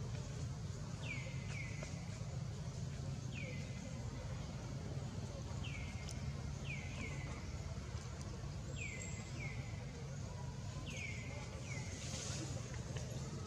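Short high-pitched animal calls, each falling quickly in pitch, often in pairs, repeating every second or two over a steady low outdoor rumble.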